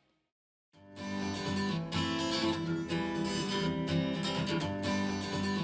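Music with strummed acoustic guitar starts abruptly about a second in, after a moment of silence. It is played back through a small powered studio monitor and recorded by microphone in the room.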